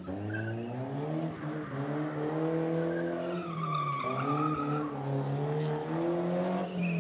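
BMW E30 drift car's engine revving up and down as the car slides, with the tyres squealing in a high whine from about three seconds in to about halfway through.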